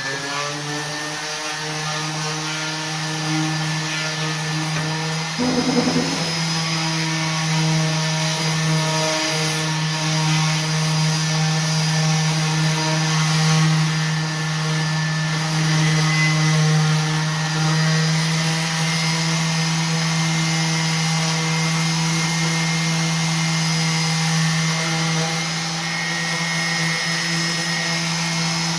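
Electric orbital sander running steadily, its motor hum mixed with the hiss of sandpaper rubbing along the painted wooden edges of a chest of drawers. A brief knock-like change about six seconds in.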